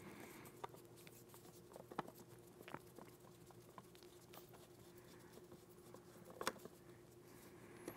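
A few faint, scattered clicks and scrapes of a screwdriver turning the screw that holds the rubber buttstock pad on a VR80 shotgun, over near-silent room tone.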